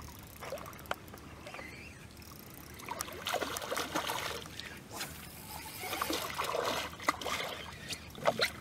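A hooked redfish thrashing and splashing at the surface beside the boat, in two bouts of splashing about three and six seconds in. A few sharp knocks come near the end.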